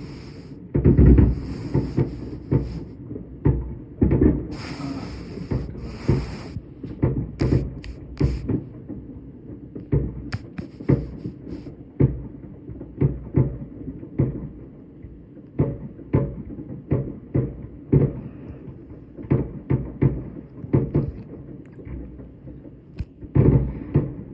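New Year's fireworks going off all around: a steady run of irregular bangs and pops, several a second at times, over a low rumble of distant explosions. The loudest and longest bursts, with a crackling hiss, come in the first few seconds.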